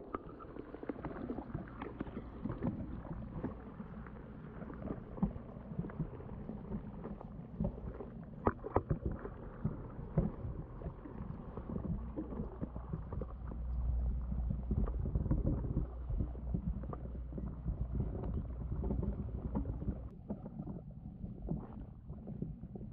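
Muffled underwater sound in a tank of fish under strong aeration: a low rumble with irregular clicks and pops of air bubbles from an air pump's airstone, louder for a few seconds past the middle.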